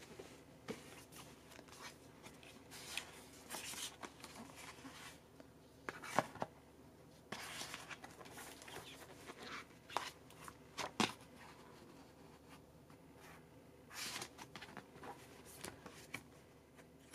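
Hands handling a boxed CD album: cardboard cover and paper photobook pages rustling and being flipped, with scattered soft clicks and taps.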